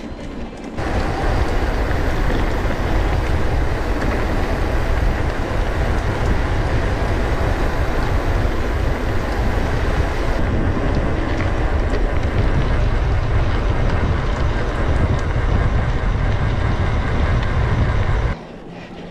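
A mountain bike rattling over rough ground with heavy wind buffeting on the camera microphone: a loud, deep rumble that starts suddenly about a second in and cuts off abruptly near the end.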